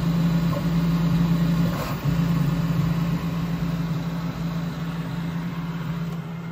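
3D printer running through a print, a steady low mechanical hum from its motors and fans, broken briefly about two seconds in and dropping away near the end.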